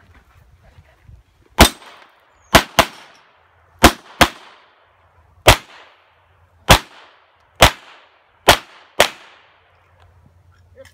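Handgun fired ten times while shooting a course of fire: sharp single shots and quick pairs, spread over about seven and a half seconds, each followed by a short echo.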